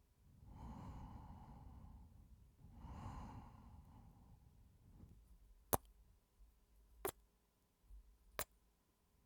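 A man's two slow, breathy sighs close to the microphone, then three sharp kiss smacks just over a second apart.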